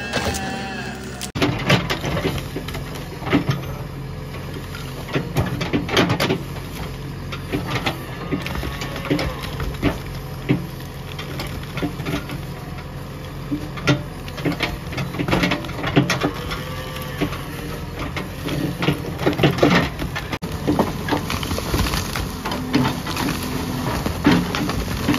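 JCB 3DX backhoe loader's diesel engine running steadily under load while its bucket pushes over an old brick-and-stone wall, with repeated knocks and the clatter of falling bricks and rubble.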